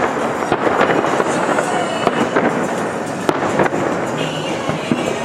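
Aerial fireworks shells bursting in quick, irregular succession, with sharp bangs over a continuous crackle from the overlapping bursts.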